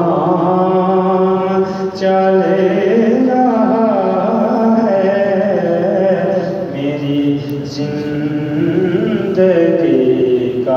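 Unaccompanied male voice singing a naat (Urdu devotional poem), drawing out long, held, ornamented notes that slide between pitches.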